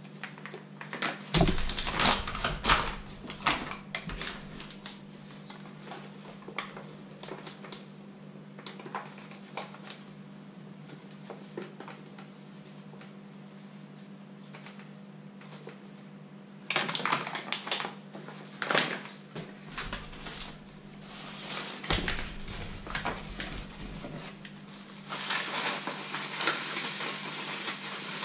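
Paper bag of wheat flour crinkling and rustling as it is handled, with scattered small knocks against the counter and a steel bowl, then flour pouring from the bag into the steel bowl near the end with a soft steady hiss.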